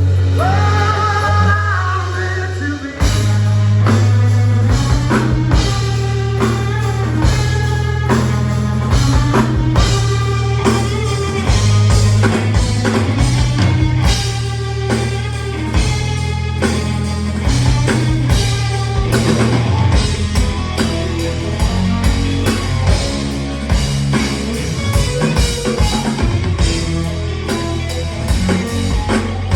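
Live rock band playing loud: electric guitar, bass and drum kit, with a high sliding note at the start and the full band coming in about three seconds in.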